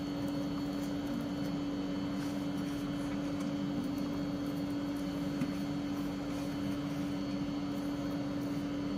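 A steady machine hum with one constant low tone over a faint even hiss, with a soft tick about five and a half seconds in.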